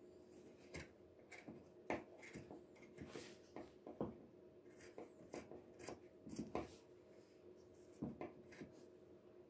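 Scissors cutting through denim: a faint, uneven run of short snips, about one or two a second.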